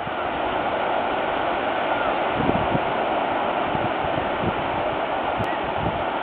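Sea surf washing onto a sandy beach as a steady rushing noise. From about two seconds in, low wind buffets hit the microphone.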